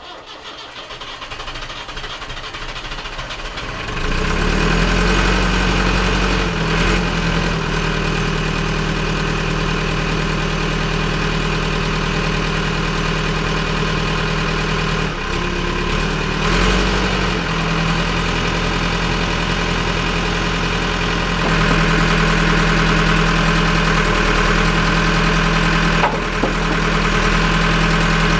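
JCB 3CX backhoe's diesel engine coming up to speed and settling into a steady idle about four seconds in, with a few brief changes in engine speed.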